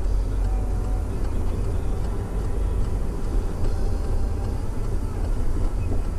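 Steady low rumble of a Peugeot 308 heard from inside its cabin, the engine and road noise of the car under way.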